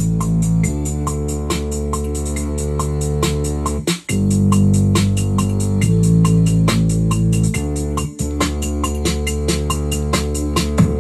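Electronic beat playing from a Native Instruments Maschine MK3: sustained chords and a bass line under fast, even hi-hat ticks. The music cuts out briefly about four seconds in and again around eight seconds.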